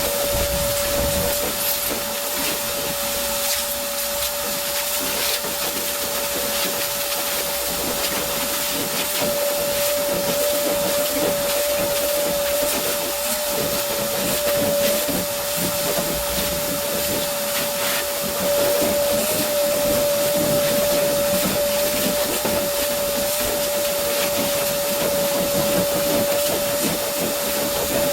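Angle grinder with a flap disc running steadily, smoothing down fresh welds on a steel pickup bed: a constant high whine with grinding hiss over it.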